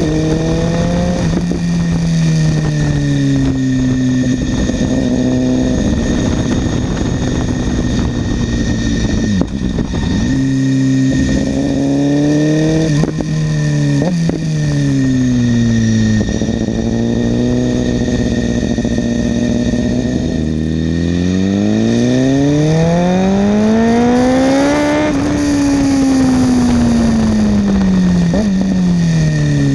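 BMW S1000RR inline-four engine with an SC-Project exhaust, heard onboard: the revs repeatedly climb and fall. It eases off around the middle with a few sharp cracks, then makes one long climb about three quarters through before rolling off again.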